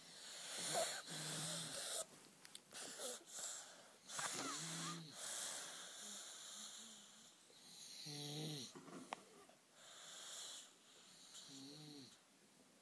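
Sleepers snoring: wheezy, rasping breaths, with a low pitched snore about every three and a half seconds, four in all.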